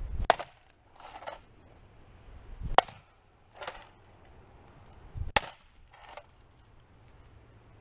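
Three sharp chops of a SOG Tactical Tomahawk striking an optical disc drive's sheet-metal case on a wooden stump, about two and a half seconds apart. Each strike is followed by a fainter, shorter noise.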